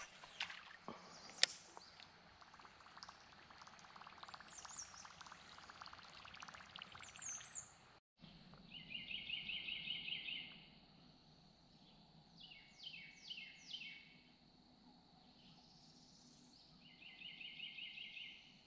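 Wild birdsong: a rapid trill of repeated notes heard twice, about a second and a half each, and four quick falling calls between them, over a faint steady high insect drone.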